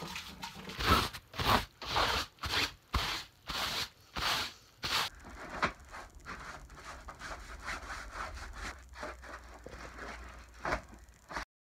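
Repeated rubbing or scraping strokes, about two a second for the first five seconds, then softer and more irregular, cutting off abruptly near the end.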